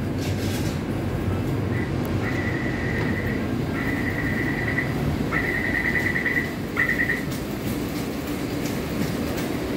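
Taipei Metro door-closing warning buzzer: a high, rapidly pulsing beep in four runs of about a second each, over the steady low rumble of the platform and the train standing at it.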